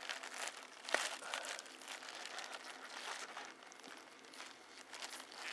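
Plastic bubble wrap crinkling and rustling under gloved hands as a packed A/C compressor is handled, with a sharp click about a second in.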